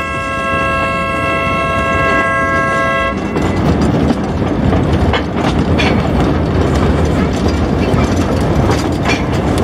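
A narrow-gauge train's horn held as one steady chord, cutting off about three seconds in. After it, the train running on the rails, with a few sharp clacks.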